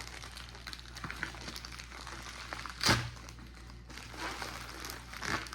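Packaging crinkling and rustling as a jewellery box is unwrapped by hand, with irregular small crackles and one sharp, louder crackle about three seconds in.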